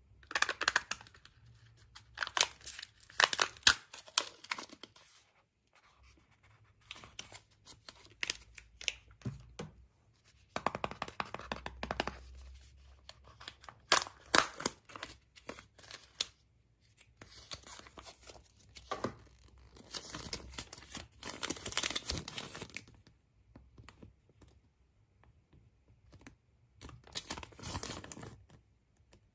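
Wrapping on a surprise egg being torn and crumpled by hand, in repeated bursts with short pauses between.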